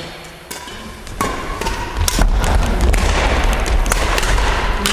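Badminton rackets striking a shuttlecock several times during a rally, sharp separate smacks echoing in a gym hall, mixed with footfalls on the court. A low rumble comes in about two seconds in.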